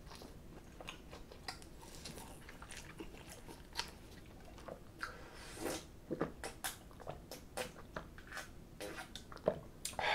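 Close-miked eating of naengmyeon cold buckwheat noodles: chewing with many short wet clicks, and drinking broth straight from a stainless steel bowl in the second half.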